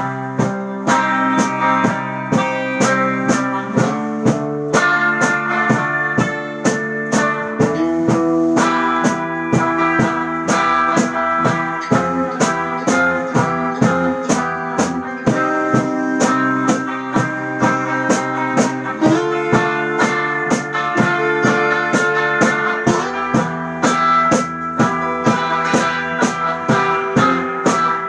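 A live band playing a surf-rock instrumental on two electric guitars, electric bass and drum kit. There is a steady beat of drum hits, and the chords change every few seconds.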